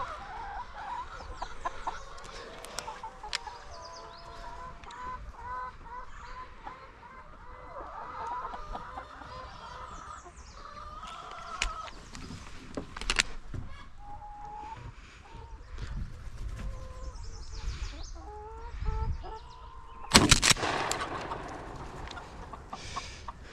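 Laying hens clucking, with a loud, sudden sound about twenty seconds in.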